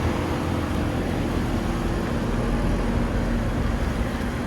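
Outdoor central air conditioner condenser unit running: a steady low hum with a faint tone over the whir of its fan.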